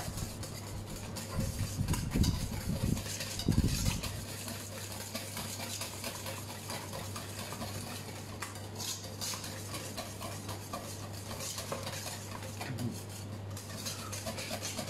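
Wire balloon whisk rapidly scraping and clinking against a stainless steel bowl, working a thick cream-cheese cheesecake batter over a bain-marie to break up its last lumps. There are a few dull knocks in the first few seconds.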